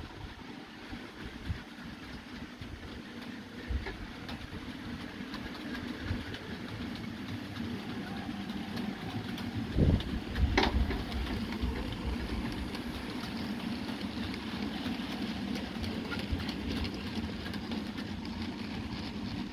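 OO gauge model freight train running along the track: a steady rumble of wheels and motor that grows louder as the train comes closer, with two sharp clicks about halfway through.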